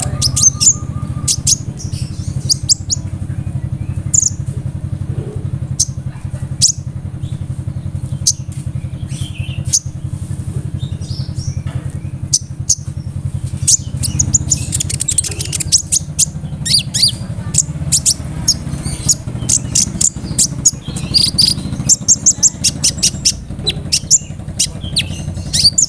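Kolibri ninja (konin) sunbird singing: rapid runs of sharp, very high chirps and trills, thickest in the second half, over a steady low hum.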